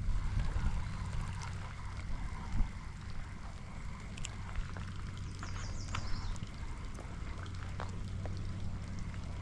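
Steady rain and water sounds over a low, steady rumble, with scattered light ticks and a short cluster of high ticks about six seconds in.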